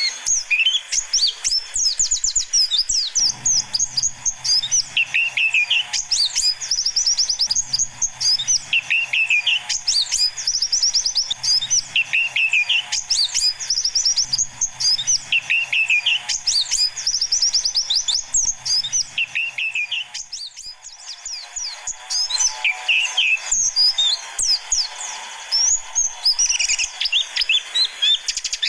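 White-eyes (pleci) chirping and singing: a dense stream of fast, high twittering notes, with a lower warbled phrase repeating about every two seconds, as in a looped lure track. A faint low hum sits underneath for much of it.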